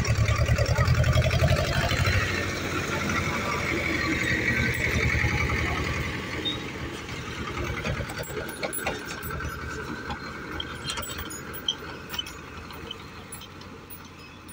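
Farm tractor's diesel engine running with a fast, low pulsing beat as it pulls a loaded trailer past, fading steadily as it moves away.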